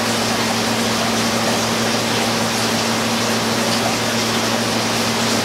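Steady hum with rushing water from a Blichmann Riptide pump running with its speed control spun all the way out, which makes the pump leak. A chiller's steady hum runs underneath.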